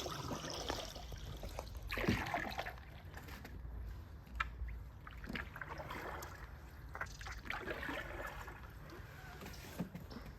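Paddles dipping and pulling through calm water as a small paddled boat glides along. The splashes come irregularly, roughly every couple of seconds, with light trickling water between strokes.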